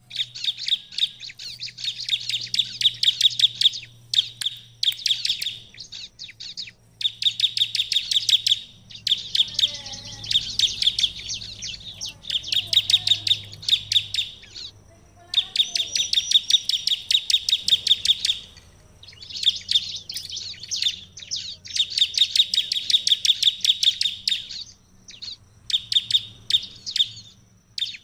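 Bar-winged prinia (ciblek) singing: bouts of rapid, sharp, high repeated notes, each bout lasting one to three seconds, with short pauses between.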